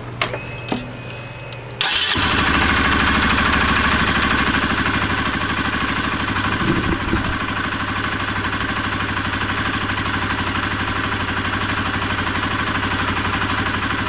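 A couple of small clicks, then about two seconds in the Honda CBR125R's single-cylinder four-stroke engine comes in abruptly and idles steadily. The corroded spark plug cap has been cleaned and refitted, and it no longer sparks.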